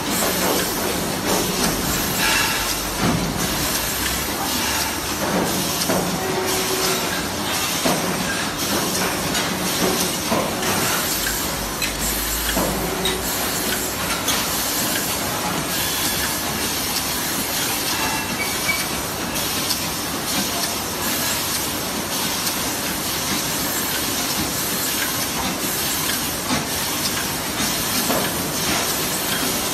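Steady hissing din of a shop full of laser tube cutting machines running, cutting stainless steel tubes, with scattered knocks and clanks.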